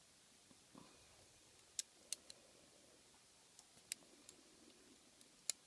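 Sparse, sharp little metal clicks and ticks of lock picks and handcuffs being handled, about half a dozen spread over the few seconds against near silence.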